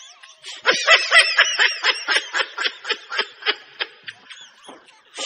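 High-pitched giggling laughter: a quick run of repeated laughs that starts loud about a second in and fades away.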